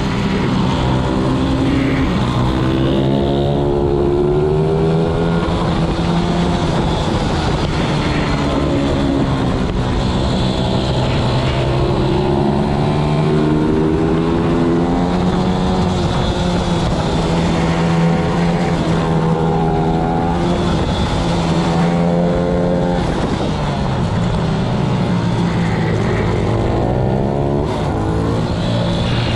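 Onboard sound of a racing pit bike's single-cylinder four-stroke engine at race pace. The revs climb and drop again and again as the rider works the throttle and gears through the corners.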